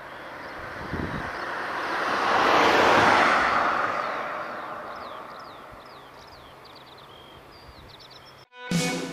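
Jet aircraft engine noise swelling to a peak about three seconds in and fading away as the aircraft passes, with small birds chirping throughout. The sound cuts out briefly near the end and music starts.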